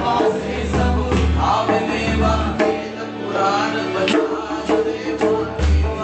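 Informal group jam: several voices singing together over guitars, keyboard and conga beats. The low bass notes drop out for a few seconds in the middle while the drum strokes carry on.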